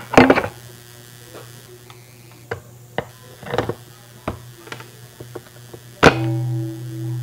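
Stainless steel mixing bowl set down onto the plastic turntable base of a hand-mixer stand with a clatter, then light clicks and knocks of handling. About six seconds in, a sharp knock is followed by a low ring that lingers and slowly fades.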